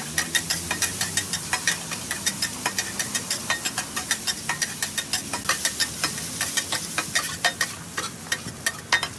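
Metal spatula striking and scraping a wok in quick, even strokes, about five a second, while food sizzles in the hot oil.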